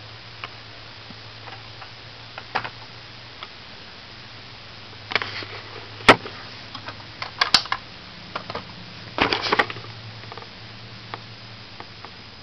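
Irregular sharp clicks and short clusters of light knocks, the strongest about halfway through and again a little later, over a low steady hum.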